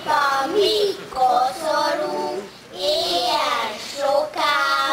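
Small group of children singing a Slovak Advent song into microphones, in short phrases with brief breaths between them.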